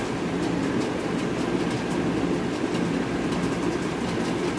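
A steady low rumbling hum of background noise, with faint scratchy rustles as a comb and fingers work through hair.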